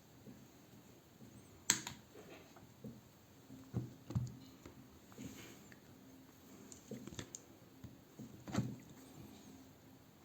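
Faint scattered clicks and light taps of small tools and tablet parts being handled, with a sharp click about two seconds in and another near the end.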